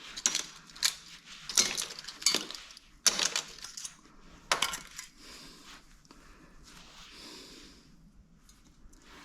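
Loose metal motor parts clinking against metal as they are handled and dropped: about six sharp clinks in the first five seconds, then softer scraping and rustling.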